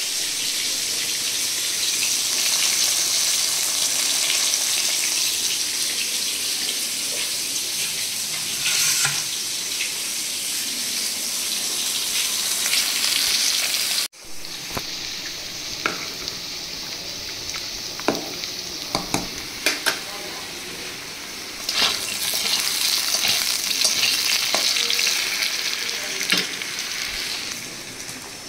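A pot of rice boiling hard on a gas burner, with a steady bubbling hiss. After an abrupt cut about halfway in, fish pieces fry in hot oil in a wok, with a quieter sizzle and many sharp spattering pops.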